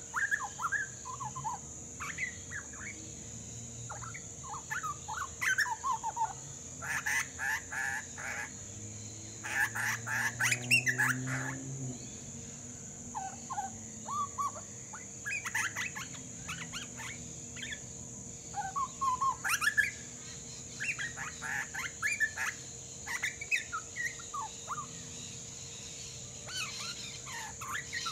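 Grey butcherbird fledgling practising its song: a long, rambling run of short warbled and chortled notes. The notes grow busier and louder around a quarter and a third of the way through.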